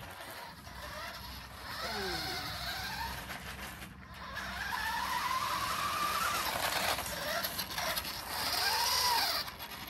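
Nikko Firehawk radio-controlled toy car driving, its small electric motor and gears whining and rising and falling in pitch with the throttle.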